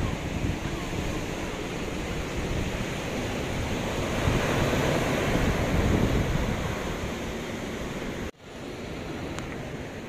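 Sea surf breaking and washing up a sand beach, swelling louder around the middle. It cuts out for an instant about eight seconds in and comes back quieter.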